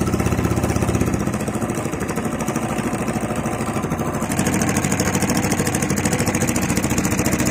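Small wooden fishing boat's inboard engine running steadily under way, with a fast even firing beat. The sound changes a little and gets brighter after about four seconds.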